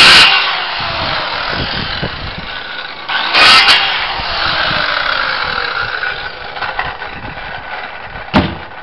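Handheld power saw cutting through the timber top of a cabinet, then dropping in pitch and running on more quietly once the cut ends. A second short burst of cutting comes about three and a half seconds in, and a single sharp knock near the end.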